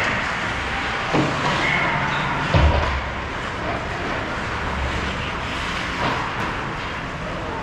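Ice hockey play: a steady scraping hiss of skates on ice, with two sharp knocks, about a second in and about two and a half seconds in, the second louder with a low rumble after it.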